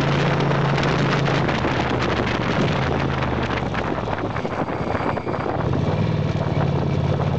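Motorcycle engine running steadily while riding, under rushing wind noise on the microphone; the engine note fades for a few seconds in the middle and then comes back.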